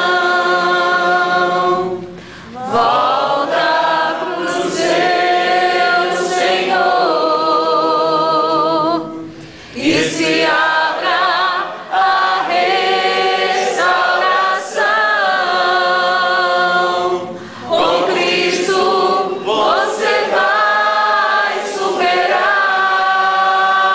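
A small group of voices singing a worship song together without accompaniment. Long held notes come in phrases a few seconds long, with short breaths between them.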